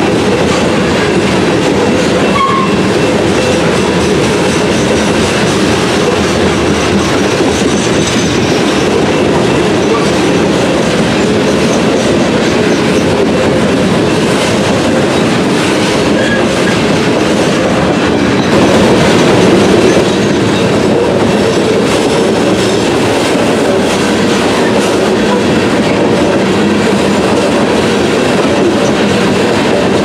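Loaded coal hopper cars of a freight train rolling past: a steady rumble of steel wheels on rail that swells briefly about two-thirds of the way through.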